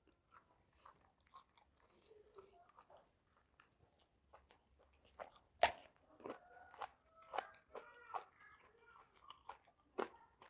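Close-up mouth sounds of a person eating raw vegetables with rice and salted fish by hand: soft wet chewing and lip clicks, with one sharp crunch about halfway through as a small round raw green eggplant is bitten.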